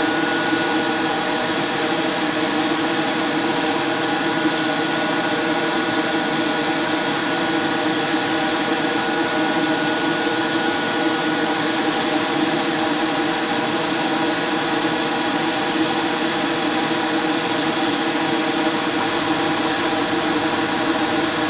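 Gravity-feed airbrush spraying paint: a steady hiss of air that drops out briefly several times, once for about three seconds, over a constant motor hum.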